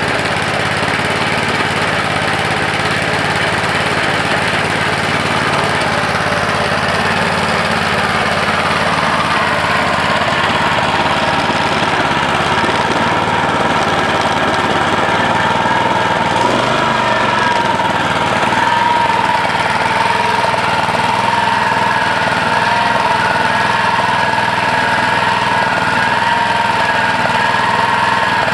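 Honda HR214 lawn mower's single-cylinder four-stroke engine running steadily at a constant speed, with a wavering whine that comes in about a third of the way through. The engine still smokes heavily despite a new head gasket.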